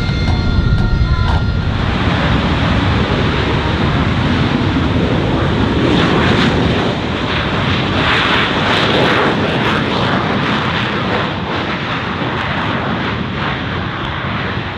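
Military aircraft flying past at an airshow: loud engine noise that builds after a couple of seconds, is strongest around the middle, and eases off slightly near the end.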